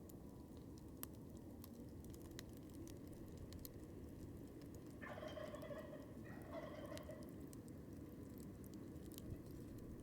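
Wild turkey gobbling twice in quick succession, each gobble about a second long, over a crackling campfire that pops now and then.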